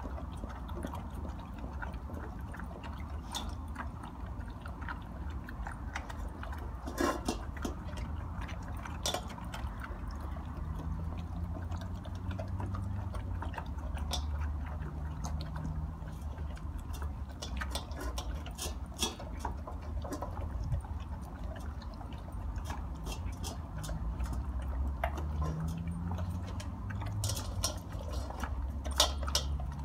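A Golden Retriever and another dog eating dry kibble from stainless steel bowls: crunching with scattered sharp clinks of food and teeth against the metal, a few louder than the rest. A steady low rumble sits underneath.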